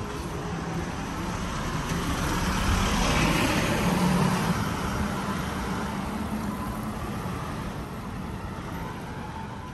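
A motor vehicle passing along the street: engine hum and road noise that grow louder to a peak about three to four seconds in, then fade away.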